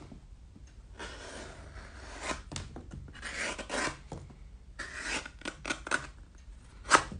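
Freshly sharpened knife slicing through a strip of leather in a cut test of its edge: several scraping, rasping cutting strokes with small clicks, then a sharp knock near the end.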